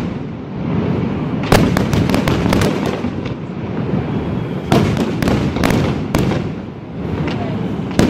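Aerial firework shells bursting in a dense barrage: a constant rumble of booms and crackle, broken by sharp reports every half second or so, loudest about one and a half seconds in, near the middle, and near the end.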